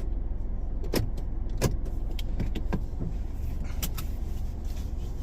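Steady low rumble of a car, with a handful of short sharp clicks and knocks scattered through it.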